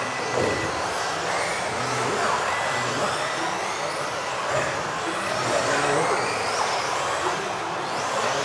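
Several electric RC off-road buggies racing on an indoor track: the whines of their motors rise and fall over and over as the cars accelerate and brake, layered over a steady background noise.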